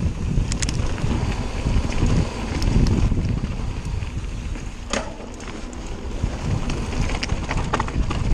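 Wind buffeting the microphone of a Cotic Flare mountain bike descending fast on a gravel trail, over the rumble of the tyres. Scattered sharp clicks and rattles from the bike come over bumps, once about half a second in, once about five seconds in, and several near the end.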